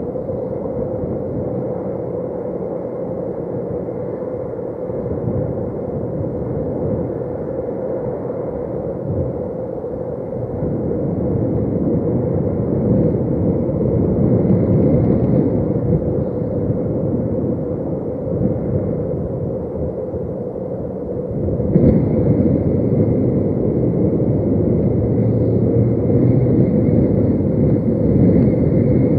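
Wind buffeting the nest webcam's microphone as a steady low rumble over a constant hum. It swells with a gust from about 11 seconds in and jumps louder again about 22 seconds in.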